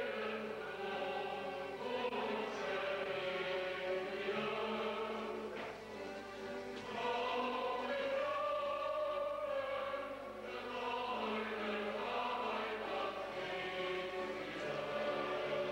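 Choral music playing, a choir singing long held notes.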